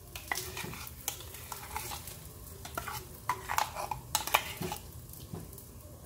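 A utensil scraping and tapping against cookware in irregular strokes as ground roasted-coconut paste is added to cooked crab pieces in a pot.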